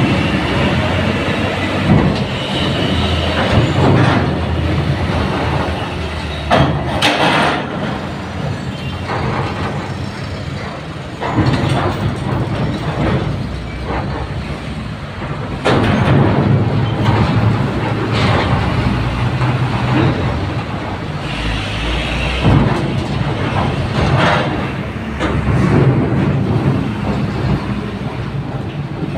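Diesel truck engines running as the trucks drive up a steel ferry loading ramp, with repeated loud clanks every few seconds as their wheels cross the ramp plates.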